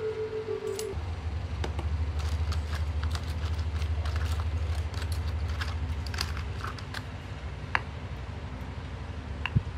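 Small metallic clicks and taps from brass clock-movement parts, a gear wheel and its pinion, being turned and handled in the fingers, with two sharper clicks near the end. Under them a low steady rumble comes in about a second in and fades after about seven seconds.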